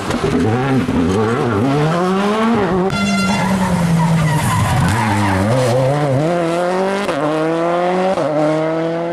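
Rally cars' engines at full revs, the pitch climbing and falling with each gear change and lift off the throttle; after about seven seconds the revs rise in steps through quick upshifts. A brief high tone cuts in about three seconds in.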